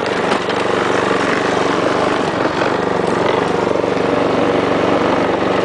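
Small pull-start lawn mower engine running steadily under load, its governor removed and the throttle locked slightly above governor speed, with the cutting blade taken off.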